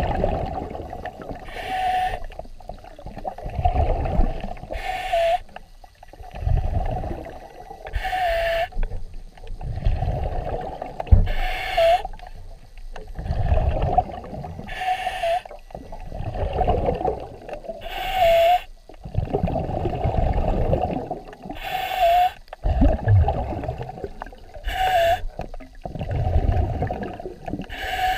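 Scuba diver breathing underwater through a regulator, about nine breaths: each a short hiss of inhaling, then a longer low rumble of exhaled bubbles, repeating every three seconds or so.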